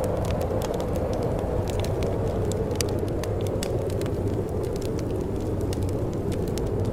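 Wood fire crackling, with scattered sharp snaps and pops, over a steady low rush of wind.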